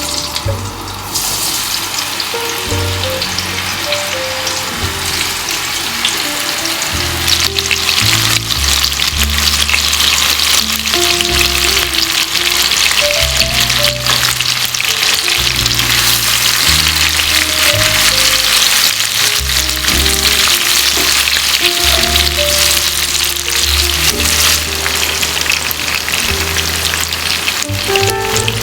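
Food sizzling in a hot pan. The sizzle starts suddenly about a second in and gets louder a few seconds later.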